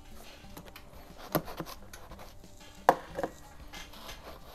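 Cardboard box being handled on a workbench as it is opened: soft rubbing and scraping with a few sharp knocks, the loudest coming in two pairs about a second and a half apart.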